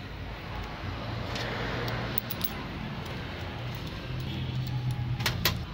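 Light metallic clicks and clinks of parts being handled on a Denso common rail diesel fuel pump held in a vise, with two sharp clicks near the end, over a steady low hum.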